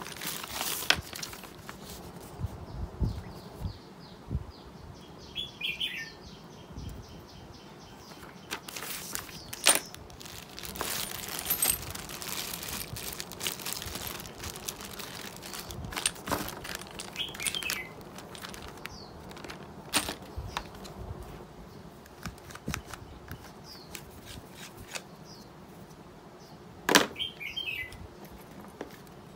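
Clear plastic zip bag of pressure-washer gun fittings being handled and crinkled, with scattered clicks and knocks as brass fittings and plastic parts are picked up and set down on the table.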